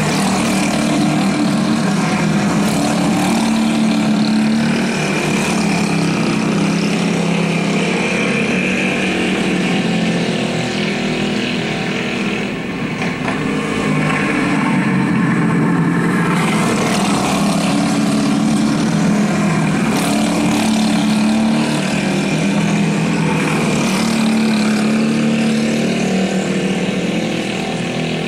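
Several small go-kart engines running together in a race, their pitch rising and falling as the karts go round the track.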